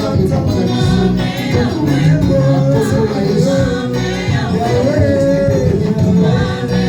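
Gospel worship music: a singing voice over full instrumental accompaniment.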